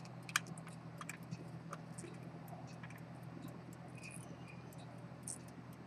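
Small, irregular clicks and light taps of watchmaker's tools handling the parts of a fusee pocket watch, over a steady low hum.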